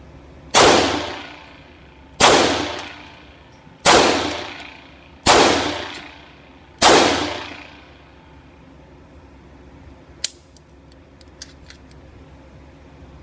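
Five .22 LR pistol shots about one and a half seconds apart from a KWC airsoft 1911 converted with a GSG .22 LR kit, each ringing off in the indoor range. A sharp click follows a few seconds later, then a few fainter clicks.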